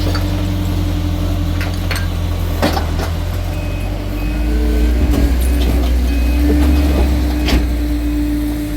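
A heavy diesel engine runs steadily, with its pitch shifting slightly about halfway through. Occasional sharp clanks and knocks come over it, the loudest at about a third of the way in and near the end.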